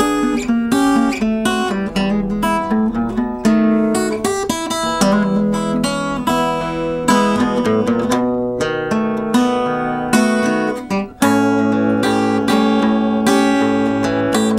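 Acoustic guitar strummed and picked in a blues instrumental break between sung verses. A little past eleven seconds it drops out for a moment, then comes back fuller and louder.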